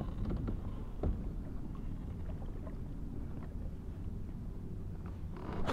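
Kayak under way on the water: a steady low rumble with faint water noise and a light knock about a second in.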